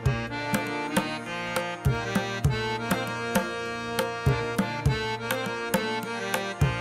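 Instrumental background music in an Indian classical style: a hand-drum rhythm of sharp strikes under a sustained melody.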